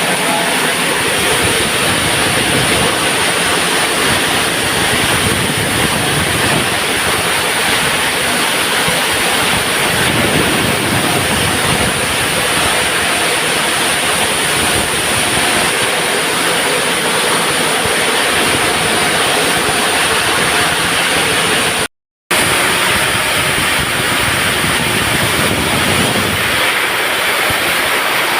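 Heavy machinery running steadily while granite stone is loaded, a dense continuous noise with no clear rhythm, cutting out briefly about 22 seconds in.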